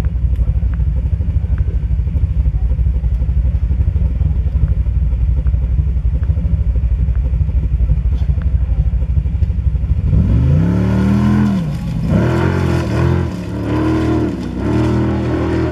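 A steady low rumble for the first part. From about ten seconds in, a Formula Offroad car's engine is revved hard in repeated bursts, its pitch rising and falling with each burst as the car climbs a loose sandy slope.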